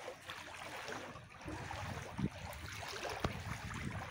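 Wading through shallow floodwater: water sloshing and swishing around the legs with each step, with a sharp knock about three seconds in.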